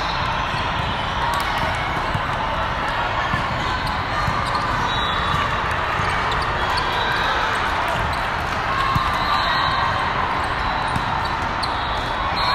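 Volleyballs being struck and bouncing, many sharp slaps scattered over the steady din of a large sports hall with several courts in play.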